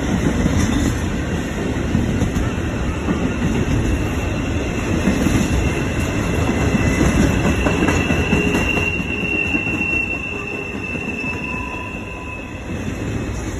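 Intermodal freight train of stacked containers and trailers rolling past, a steady rumble of wheels on rail. A high, steady wheel squeal comes in about halfway through, is strongest a few seconds later, and fades near the end.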